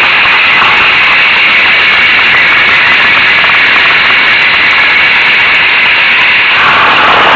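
Zündapp M50 Bergsteiger moped's 50 cc two-stroke engine running steadily while riding.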